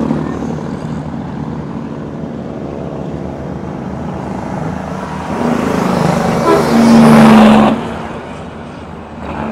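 Heavy truck diesel engine pulling hard up a steep grade, running steadily, then swelling loud as a truck passes close from about five and a half to eight seconds in, and dropping away.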